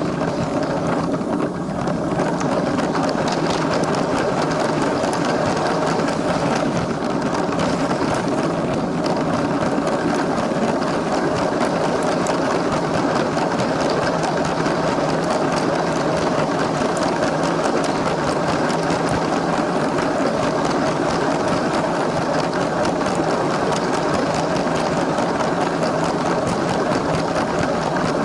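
LEGO train's small electric motor whirring steadily, with plastic wheels rolling and clicking rapidly along the track.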